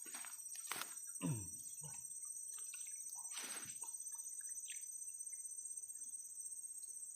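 Insects droning steadily at a high pitch, with scattered chirps and small rustling sounds. About a second in, a brief louder sound slides down in pitch.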